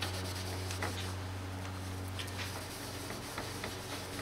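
Red cotton shop rag wiping and drying a plastic headlight lens just treated with carburetor cleaner: faint soft rubbing strokes over a steady low hum.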